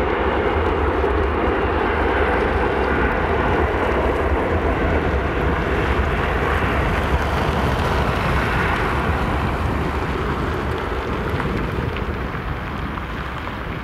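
Bombardier CRJ-900's two rear-mounted General Electric CF34-8C turbofans at takeoff thrust during the takeoff roll: steady, rushing jet noise that slowly fades over the last few seconds as the aircraft runs away down the runway.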